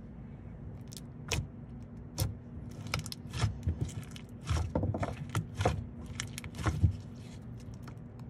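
Slime being played with by hand, with a run of irregular sticky clicks and pops. The loudest pop comes near the end.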